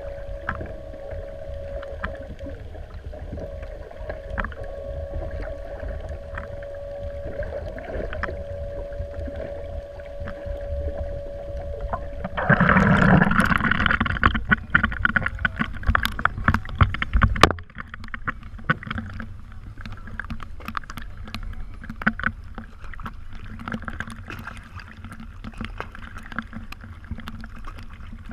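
Sounds of a small fishing boat on the water: a steady hum with a low rumble stops about twelve seconds in. A louder rush of noise follows for about five seconds, then scattered knocks and clicks.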